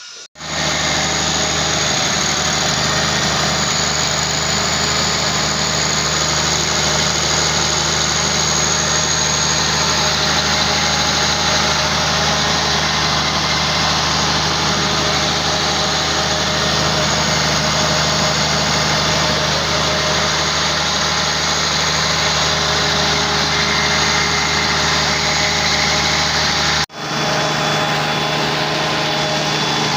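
Freshly rebuilt Cummins 6BT inline-six diesel engine running at a steady idle. The sound breaks off for an instant near the end and resumes unchanged.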